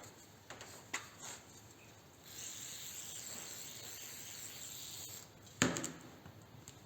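Aerosol can of brake cleaner spraying in a steady hiss for about three seconds, after a few light clicks. A sharp knock follows near the end.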